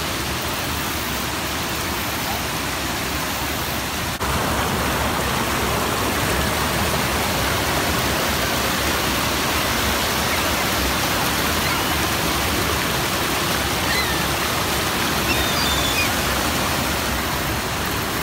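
Steady rush of a waterfall heard up close, an even noise with no rhythm, which jumps louder about four seconds in.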